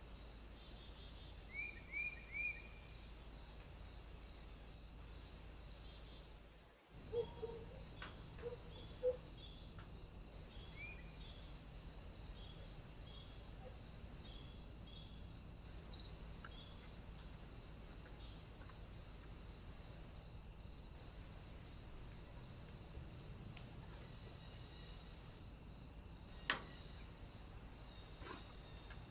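Faint outdoor ambience from a trail camera at a bird feeder: a steady high whine with a soft pulse repeating about once a second. There are three quick chirps near the start, a few soft knocks and clicks after a break about a third of the way in, and one sharp click near the end.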